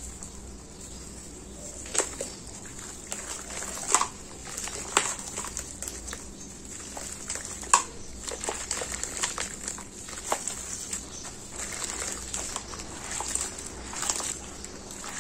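Gloved hands crumbling dry sand-cement into watery cement slurry and squeezing the wet mix, with crumbling, wet squelching and an irregular run of sharp cracks, the loudest nearly eight seconds in.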